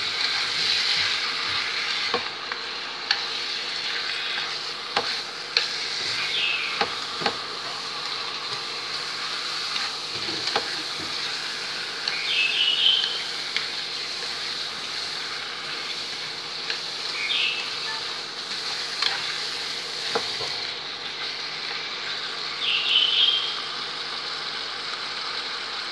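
Chicken pieces and lemongrass sizzling in hot oil in a frying pan as they are stir-fried, with occasional sharp clicks of chopsticks knocking against the pan.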